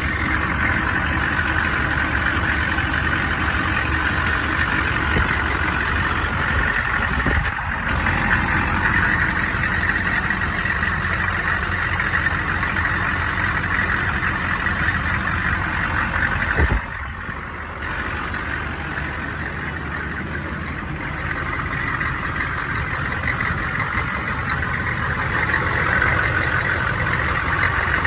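Engine idling with a rapid, high-pitched metallic banging in time with its running, which the owner suspects comes from a cracked flexplate or loose crank bolts.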